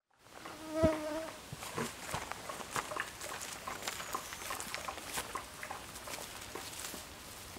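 Outdoor woodland ambience with a short, loud buzz about a second in, like an insect passing close to the microphone. After it come scattered small clicks, ticks and rustles.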